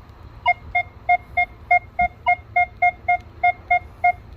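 Metal detector beeping steadily, about three short high beeps a second, as the search coil is swept over a non-ferrous target lying right next to a small nail. The target tone holds steady: a strong good-target signal that wins over the nearby iron.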